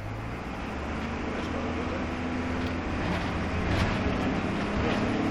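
Dennis Dart single-deck bus heard from inside the saloon: the engine drones and grows steadily louder as the bus gets under way, with the note shifting partway through. Light clicks and rattles from the body ride on top.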